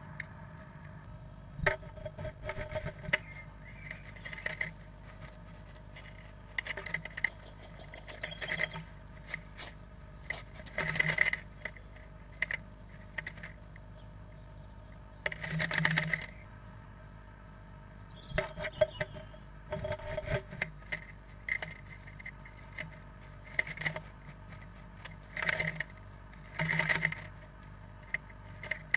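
Great tit scratching and rustling nest material inside a nest box, in short irregular bursts every second or two, a few of them longer, over a faint steady hum.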